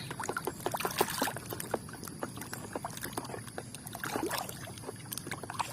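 Water splashing and dripping in quick, irregular little splashes as a mud-caked toy is washed by hand.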